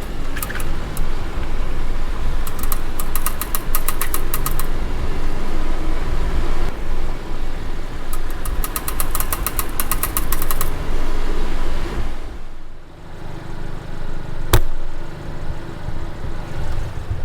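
A car's wheel clicking rapidly and evenly while driving, several clicks a second, in two runs, over a low road and engine rumble; one sharp click comes near the end. The owner cured this wheel click by cleaning the wheel and brake-disc mating faces and refitting the wheel with the nuts tightened in a star pattern.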